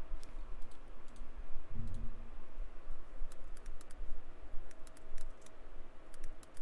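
Typing on a computer keyboard: key clicks in short quick runs.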